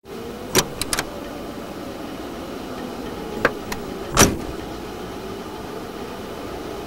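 Van door clicks as it is unlatched and opened, then is slammed shut with one heavy thud about four seconds in, over a steady low hum.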